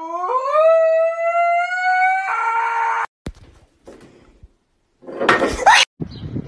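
Husky howling: one long howl rising in pitch that turns harsher near the end and cuts off abruptly about three seconds in. A short, loud, noisy burst follows around five seconds in.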